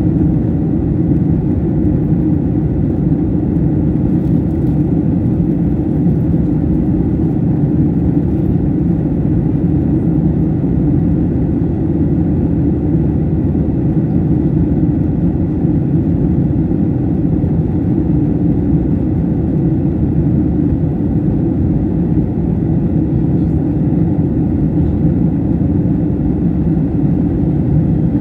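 Steady engine and airflow noise inside a passenger airliner's cabin in flight: an even low rumble that does not change.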